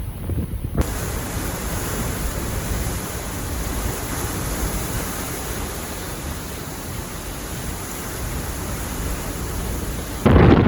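Steady, even rushing noise of Hurricane Elsa's storm. About a second in it settles in after low wind buffeting on the microphone, and near the end loud gusty wind buffeting on the microphone cuts in suddenly.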